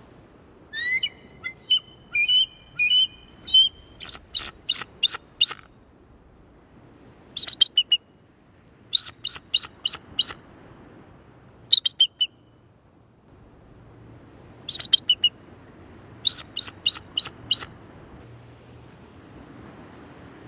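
Eagle calling in bursts of high, sharp chittering notes. There are about seven runs of rapid piping calls, the first and longest lasting about three seconds, with short pauses between them over a faint steady hiss.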